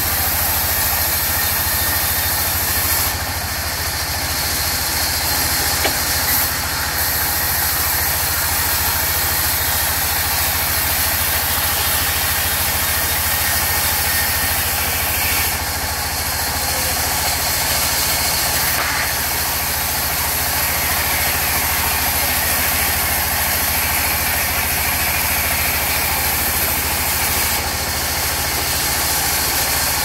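Sawmill band saw running steadily, ripping a mahogany plank lengthwise, over the constant drone of the machine driving it. A higher hiss comes and goes three times, a few seconds each.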